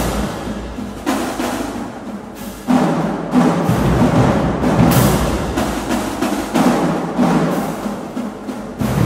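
Marching drumline playing a loud percussion feature: tuned marching bass drums struck with mallets, together with snare drums, in dense rhythmic phrases that swell and ease.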